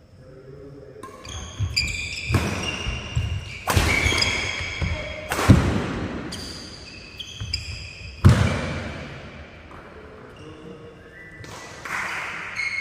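Badminton rackets striking the shuttlecock in a doubles rally: a few sharp hits, the loudest three spread about two to three seconds apart, each echoing through a large hall. Between them, many short high squeaks of court shoes on the wooden floor.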